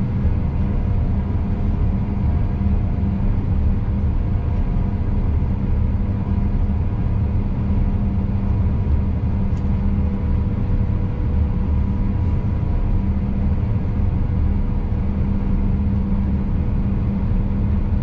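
Combine harvester at work, heard from inside its cab: the engine and threshing machinery make a steady low rumble with a constant hum.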